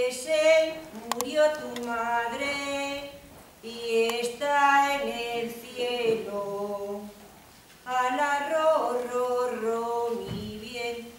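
A woman singing a Spanish lullaby (nana) in three long, slow phrases with short pauses for breath between them.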